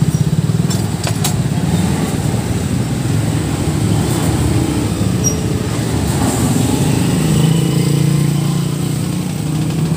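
A motor vehicle engine running steadily as a low rumble, with a couple of light clicks in the first second or so.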